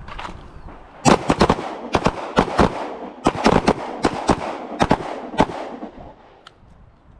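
Handgun shots from several shooters firing at once, in quick, ragged, overlapping strings that start about a second in and die away a little before six seconds, with a faint click near the end.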